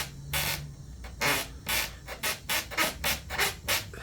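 Cracked furniture-frame joint creaking as it is flexed, about ten short creaks that come faster in the second half. The creaking is the sign of the cracked, weakened joint.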